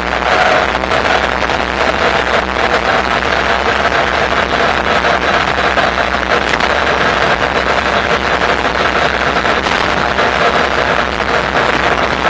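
Steady wind and rolling noise from riding a Bafang BBSHD mid-drive electric bike, with a low hum underneath.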